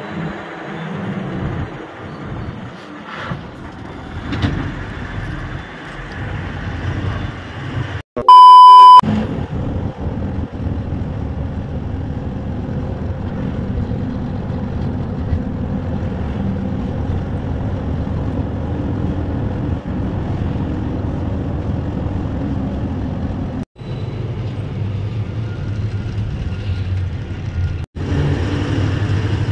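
Loaded lorry's diesel engine and road noise heard from inside the cab while driving, a steady low rumble. About eight seconds in, a short, very loud electronic beep sounds once.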